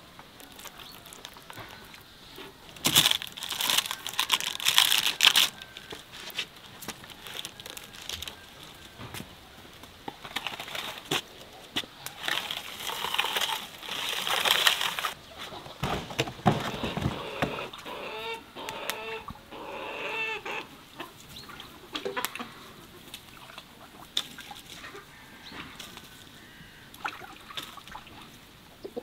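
Domestic fowl clucking in a farmyard. Loud bursts of scraping and clattering come about three seconds in and again around twelve to fifteen seconds.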